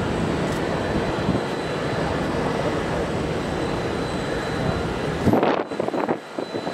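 Steady jet-aircraft noise across the apron: a broad roar with a low rumble and a faint high whine. About five seconds in, the low rumble drops away suddenly and a few short uneven bursts follow.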